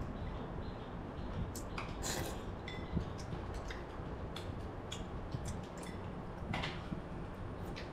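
Scattered light clicks and taps of a plastic selfie-stick tripod and phone being handled and adjusted, over a steady low room hum.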